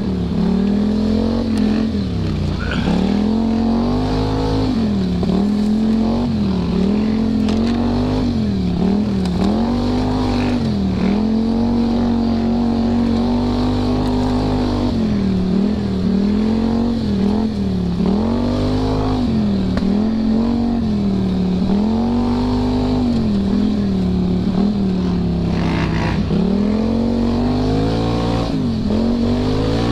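ATV engine running under riding load, its pitch dipping and climbing again every couple of seconds as the throttle is eased off and opened up.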